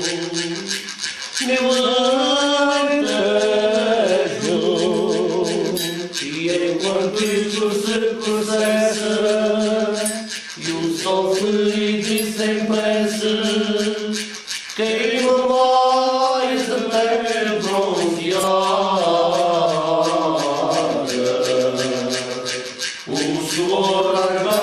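Group of men singing together, several voices holding long notes in phrases with brief breaths between them, while a rattling percussion instrument shakes steadily in time.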